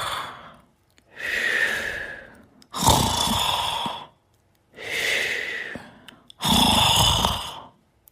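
Sleep breathing with snoring, slow and regular. Each in-breath carries a rough, low snore and each out-breath is a breathy exhale, the cycle repeating about every three and a half seconds.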